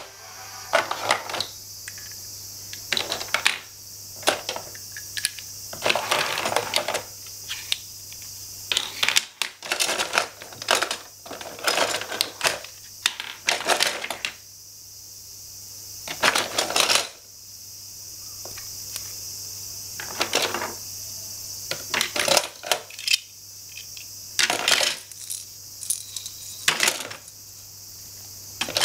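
Plastic and wooden pieces of a children's toy tool set clicking and clattering as they are handled, taken out of a plastic toolbox and set down. The clicks come in irregular bursts with short pauses between.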